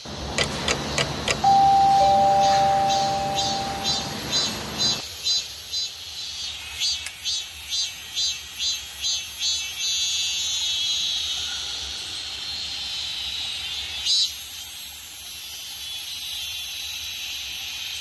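Evening insects chirping in a quick, regular pulse, about three chirps a second, over a rushing stream that cuts off about five seconds in. A high, steady insect buzz starts about two-thirds of the way through.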